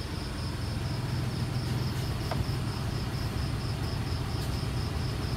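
Perodua Viva's three-cylinder engine idling steadily with the air-conditioning switched on. The idle holds under the air-conditioning load instead of sagging toward 500 rpm, a sign that the freshly serviced idle control valve is raising the idle as it should. A faint, fast, high-pitched pulsing chirp runs over it.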